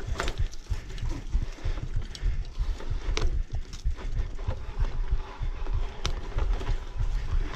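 Mountain bike riding over a rough dirt trail: irregular rattles and knocks from the bike as it goes over bumps, over a low rumble of wind buffeting the camera's microphone.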